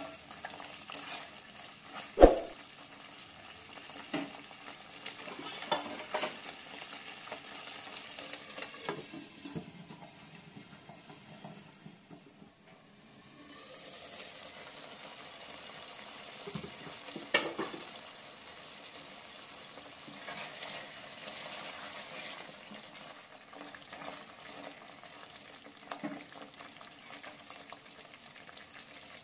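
A spatula stirring thick, sizzling masala gravy in a nonstick pan, with a sharp knock against the pan about two seconds in. From about halfway the gravy simmers and sizzles under a glass lid, with another knock a few seconds later.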